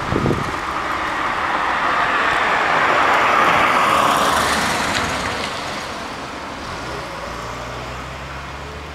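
A road vehicle passing by: tyre and engine noise swelling to a peak about three and a half seconds in, then fading, with a low engine hum continuing afterwards.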